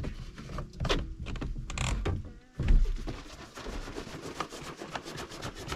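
Jerry can of gasoline and two-stroke oil being shaken to mix the fuel: irregular sloshing and knocking of the can, loudest about two and a half seconds in.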